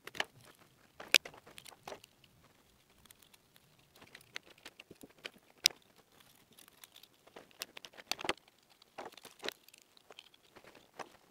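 Hand work on a socket outlet's wiring in a flush-mounted wall box: scattered small clicks and rustles of cable cores and plastic parts, with the sharpest clicks about a second in and just past halfway.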